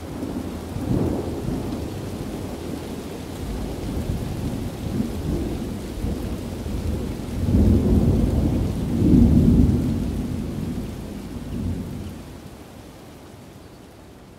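Thunder rumbling over falling rain. The loudest rolls come a little past halfway, then the storm sound fades away near the end.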